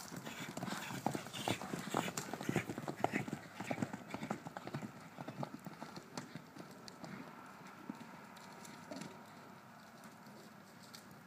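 Horses galloping on dirt ground: a fast, irregular patter of hoofbeats, busiest and loudest in the first half and fading after about six seconds as they run off.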